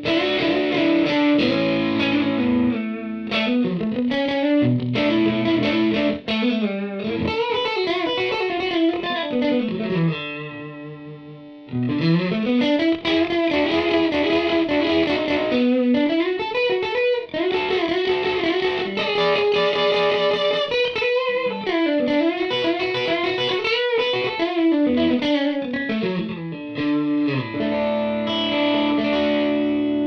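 Suhr Classic Pro electric guitar played through a Line 6 POD HD500 set to overdrive: a distorted single-note lead line with string bends and vibrato. About ten seconds in, a held note is left to ring and fade for a moment before the line picks up again.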